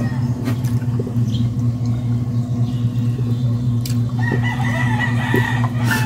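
A rooster crows once, starting about four seconds in; the call holds one pitch, then drops away at the end. A steady low hum runs underneath.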